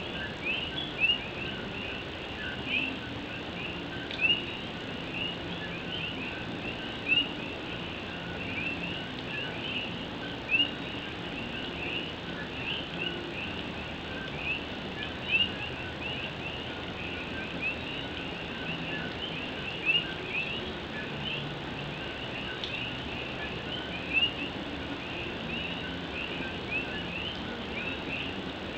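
Puerto Rican coquí frogs calling in a dense chorus of overlapping two-note "co-qui" calls, each ending in a short rising whistle, with an occasional louder call every few seconds. Behind them runs a steady hiss of rain.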